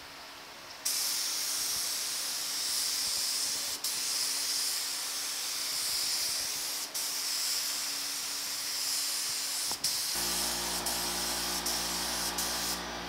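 Gravity-feed paint spray gun hissing as it sprays base coat, starting about a second in, with brief breaks as the trigger is let off. A low steady hum joins about ten seconds in.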